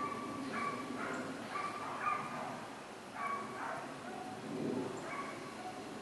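Dog giving a series of short, high-pitched yips and whines.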